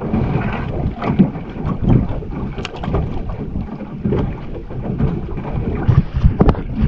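Wind buffeting the microphone on a small boat, with choppy water slapping against the hull and a few sharp knocks.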